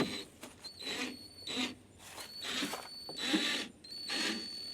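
Speaker mounting screws being worked loose by hand: short rasping turns of a screwdriver, about one a second, with brief pauses between them.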